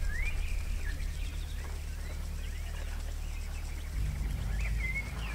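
Layered ambient soundscape: a low hum pulsing about five times a second, with thin chirping calls gliding up and down above it. The low hum thickens and grows louder about four seconds in.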